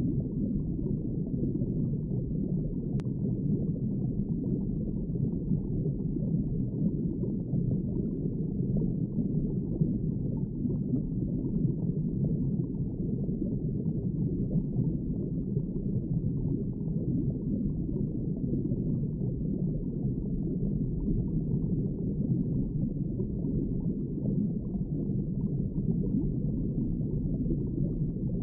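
Steady underwater ambience: a dull, even low rush of water with no high sound in it.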